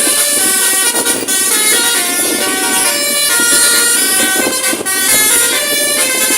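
Bus telolet horn playing a tune of short stepping notes, over vehicle noise.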